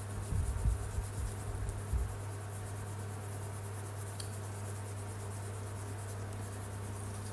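Colouring pencil scratching across paper in quick back-and-forth shading strokes, over a steady low hum. A few soft low thumps come in the first two seconds as the hand presses on the page.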